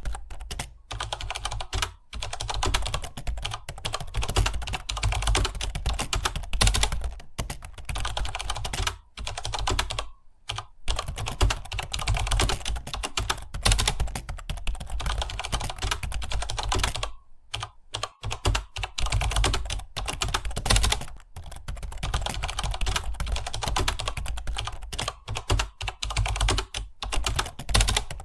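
Fast, continuous typing on a computer keyboard: a dense run of key clicks, broken by brief pauses about a third of the way in and again a little past halfway.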